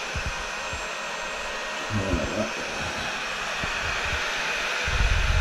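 Electric heat gun blowing hot air steadily onto freshly applied setting-type drywall joint compound to speed its cure, with a low rumble near the end.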